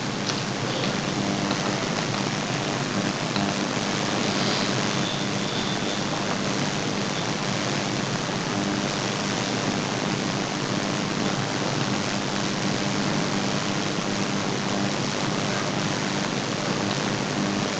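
Steady background hiss with a faint low hum underneath, unchanging throughout, with no other distinct sound.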